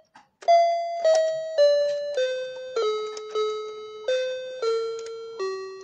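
Electronic toy piano keys played one note at a time: a run of about nine bright, beep-like tones, roughly two a second, stepping mostly downward in pitch, each note fading briefly before the next.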